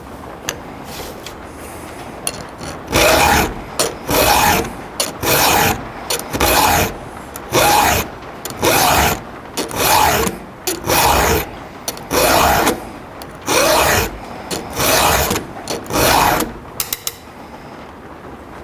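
Round file rasping across a chainsaw chain's cutter teeth in freehand sharpening strokes: about a dozen even strokes, roughly one a second, starting about three seconds in, followed by a few light clicks near the end.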